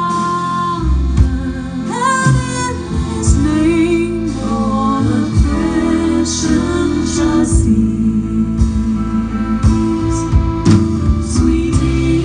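Live close-harmony singing by a female vocal trio, accompanied by accordion, guitar and double bass.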